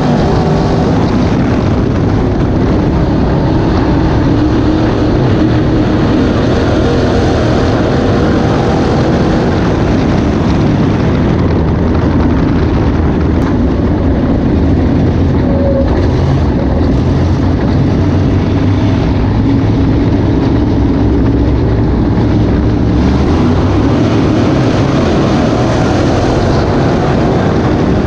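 Dirt-track race car's engine running loud and steady, heard from inside the cockpit.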